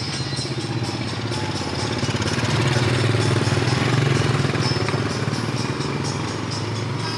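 A small engine running steadily, growing louder toward the middle and easing off again near the end.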